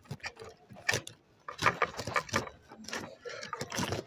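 A knife cutting the hard core out of a raw cabbage head: a run of crisp crunching and snapping cuts, coming thickest in the second half.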